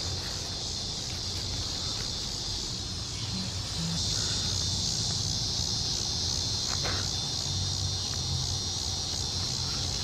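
Steady, high-pitched chorus of late-summer insects buzzing without a break, over a low rumble, with one faint click about seven seconds in.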